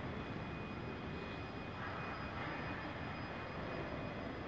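Steady mechanical drone with a faint, steady high-pitched whine running through it.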